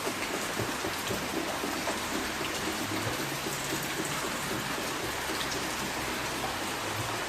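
Steady rain falling, an even hiss of rainfall.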